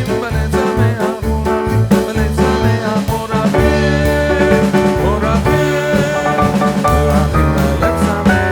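Background music with a steady bass beat and held melodic notes, with some singing.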